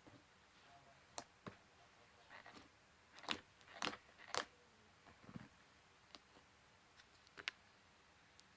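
Slime being squished and poked by hand, giving scattered faint crackles and sticky pops, with a cluster of louder snaps around three to four seconds in.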